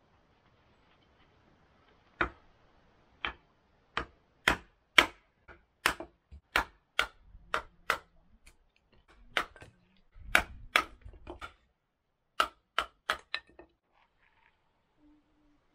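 Hatchet splitting short pieces of wood into kindling on a wooden stump: about twenty sharp wooden knocks at an uneven pace, with short pauses, starting about two seconds in and stopping shortly before the end.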